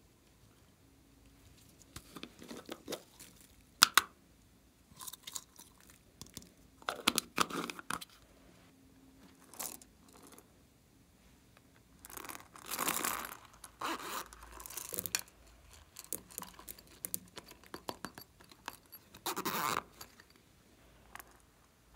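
Small plastic novelty containers being handled and twisted open over a bowl of slime: scattered clicks and rustling scrapes, with a sharp snap about four seconds in and longer scraping rustles around twelve and nineteen seconds in.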